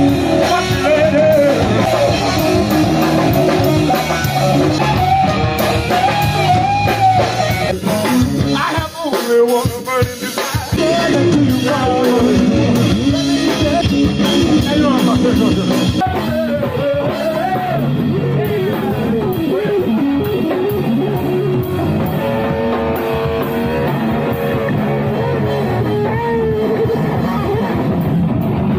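Live rock band playing through a PA: electric guitars over a drum kit.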